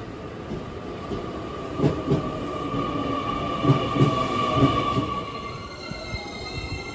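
A JR Kyushu 885 series limited express electric train running along the platform: a rolling rumble with paired clunks of its wheels over rail joints, and a steady whine. Near the end the whine gives way to higher, squealing tones.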